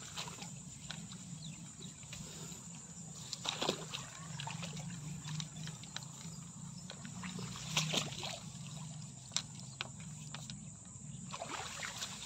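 Footsteps rustling and swishing through tall grass and weeds, irregular, with louder brushes about a third of the way in and again past the middle, over a steady high insect buzz.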